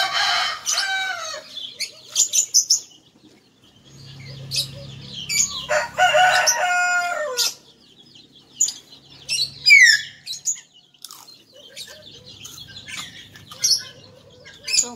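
A rooster crowing twice, one long crow at the start and another about five and a half seconds in, each falling away at the end. Small birds chirp in between, with a quick run of falling chirps about ten seconds in.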